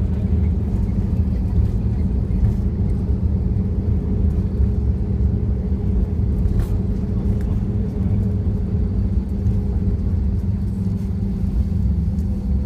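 Steady low rumble inside an Airbus A320-214's cabin as the airliner rolls down the runway after landing: its CFM56 engines running and the landing gear rolling on the runway.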